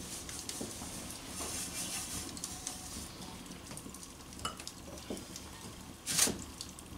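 Wood fire crackling in an open fireplace, steady hiss with scattered small pops, while a cloth wipes oil over a stamped-steel fry pan; a single sharp pop or knock about six seconds in.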